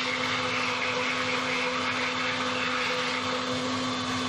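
Countertop electric blender running steadily, blending a runny orange cake batter of eggs, sugar, orange peel, juice and oil; a constant motor hum and whine.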